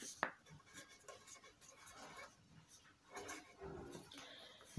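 Faint scratching of a pen writing on paper in short strokes, with a light tap of the pen about a quarter second in.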